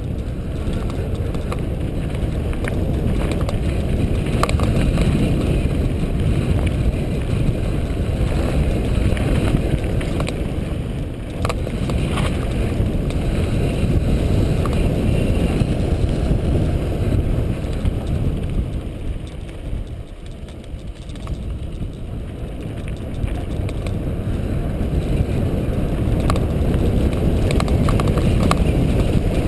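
Wind rushing over the microphone and bicycle tyres rumbling on a dirt trail during a fast downhill ride, with scattered clicks and knocks from bumps. The noise eases for a few seconds about two-thirds of the way through, then builds again.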